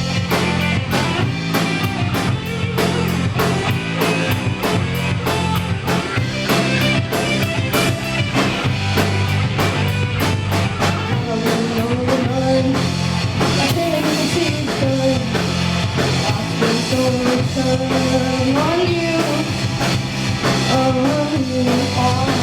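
Rock band playing live: drum kit with a steady beat over sustained bass and guitar chords, and a bending melodic lead line coming in about halfway through.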